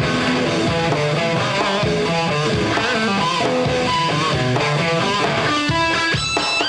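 Rock music led by an electric guitar, playing a line of short notes that change pitch quickly over a bass part.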